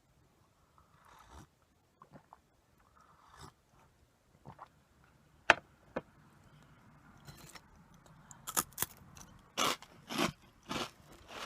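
Close-miked snack eating: a few soft rustles and one sharp click, then from about eight seconds in a run of crisp crunches, about two a second, as Karl corn puffs are bitten and chewed.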